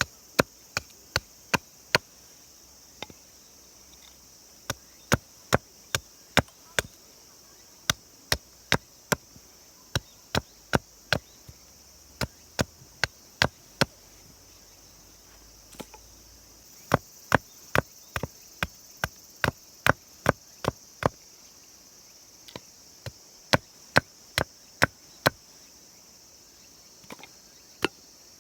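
A long series of sharp, short knocks or clicks, irregularly spaced at up to about two a second with a few short pauses, over a steady high hiss.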